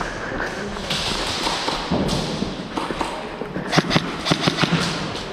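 Airsoft gun firing a quick string of about six sharp shots about four seconds in, over the scuffing and rustle of a player on the move.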